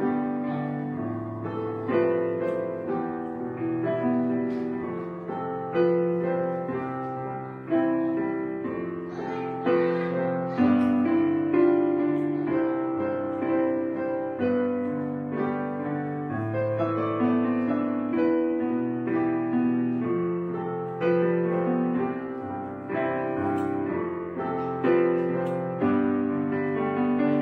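Background piano music: slow, gentle chords and melody notes struck and left to fade, a new chord every second or two.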